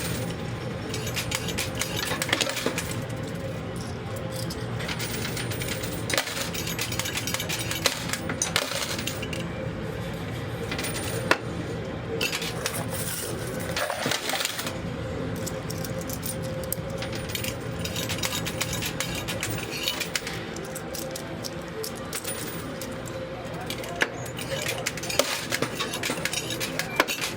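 Quarters clinking and dropping in a coin pusher machine: repeated irregular metallic clicks over the machine's steady hum.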